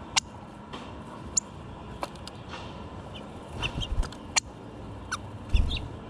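Short, sharp clicks and chip notes, about a dozen scattered through, from a male northern cardinal at a window-mounted plastic seed feeder. Two low thuds come from the bird moving on the feeder, one about two-thirds of the way in and a louder one near the end.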